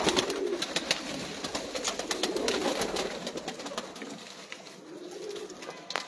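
Domestic pigeons cooing softly in a small loft, with many light clicks and scuffs over the cooing, thickest in the first half.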